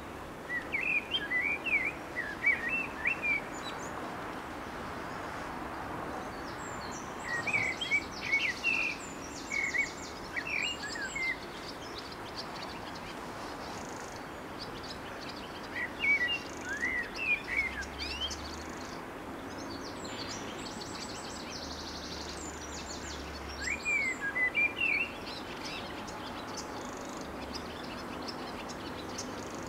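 A songbird singing in short phrases of quick chirps and trills, four bursts a few seconds apart, over a steady background hiss.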